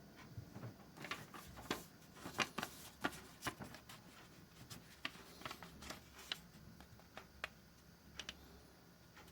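Knife blade, just sharpened up to a 6000-grit waterstone, slicing through a sheet of paper as a sharpness test: a string of faint, crisp ticks and crackles, densest in the first half and thinning out towards the end.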